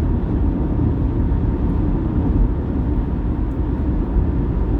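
Steady low road and wind noise of a car cruising at highway speed, heard from inside the cabin.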